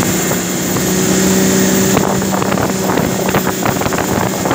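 Jet boat running at speed, its engine hum over rushing water and wind on the microphone. About two seconds in the steady hum fades back and a run of short, irregular knocks sets in.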